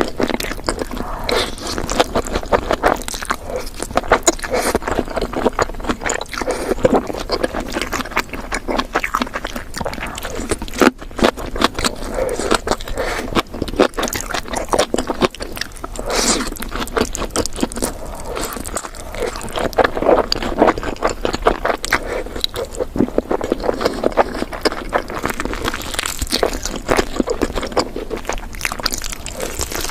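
Close-miked eating: continuous chewing and biting, a dense run of crunchy and wet mouth clicks.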